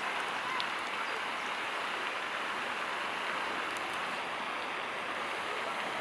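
Steady hiss of running water, even throughout, with a few faint ticks.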